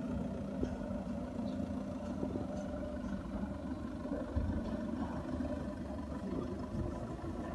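A steady low background rumble with a faint hum running through it.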